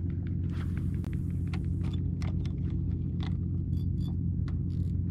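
Steady low hum of a small motor driving the kayak, with scattered light clicks and ticks on top.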